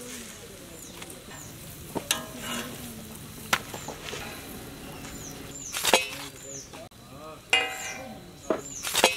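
Sharp metal clanks and scrapes of chapatis being turned and handled on a flat iron griddle and steel plate, over a light sizzle. The loudest clanks come about six seconds in and near the end, and short high chirps repeat in the background.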